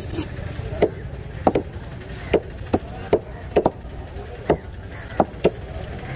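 A large, heavy knife chopping through a white sweetlip emperor fish onto a wooden table: about ten sharp, unevenly spaced strikes, some coming in quick pairs.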